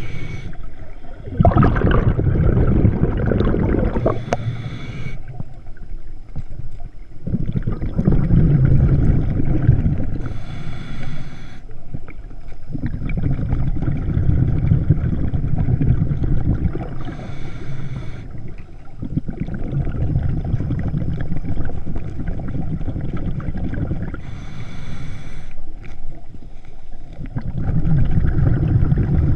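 Scuba diver breathing through a regulator underwater, heard close up. Short hissing inhales come about every six to seven seconds, four times, and each is followed by several seconds of low rumbling exhaust bubbles.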